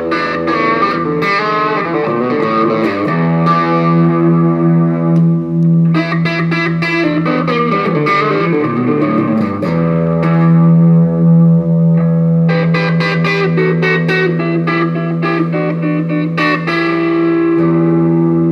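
Gibson Les Paul Custom electric guitar through a Bugera V5 tube amp on a crunch setting, playing a blues passage: held, ringing chords broken up by quick picked runs.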